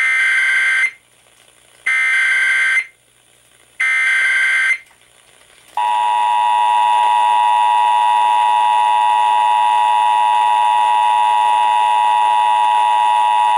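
Emergency Alert System activation on FM radio. First come three one-second bursts of SAME header data tones, about a second apart. About six seconds in, the steady two-tone EAS attention signal (853 and 960 Hz) starts. Together they announce a National Weather Service flash flood warning.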